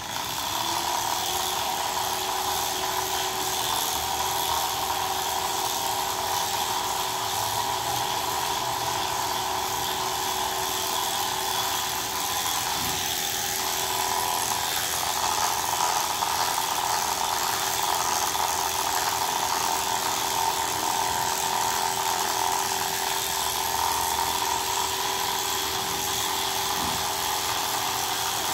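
Corded electric pet clippers switched on, then running with a steady hum as they cut through a cat's long fur.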